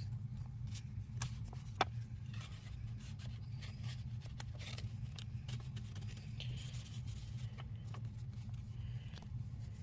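Hands handling paper and sticker packaging: scattered light rustles, taps and scrapes over a steady low hum.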